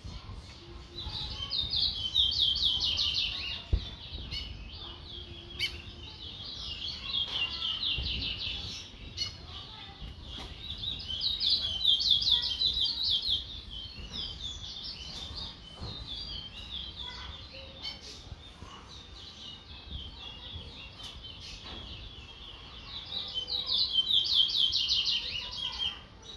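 Chestnut-bellied seed finch (towa-towa) singing: four bouts of fast, rapidly repeated high notes, each a few seconds long, with scattered chirps between them.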